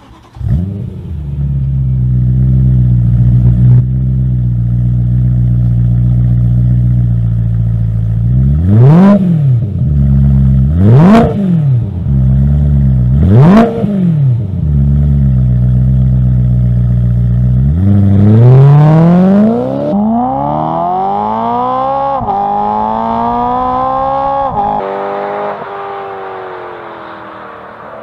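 BMW M3 E92's 4.0-litre V8 through an aftermarket exhaust, idling steadily, then blipped three times in quick revs about two seconds apart. It then accelerates hard up through the gears, the pitch climbing and dropping back at each upshift, before the sound falls away near the end.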